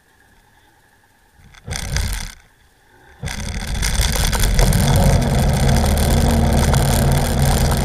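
Watercraft engine opening up about three seconds in, after a short loud rush of noise, then running loud and steady with rushing water as the craft gets under way.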